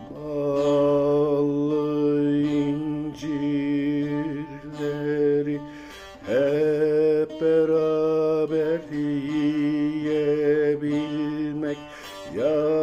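Background music: long held, drone-like notes, three in all, each sliding up into its pitch as it begins, with a short dip in level between them.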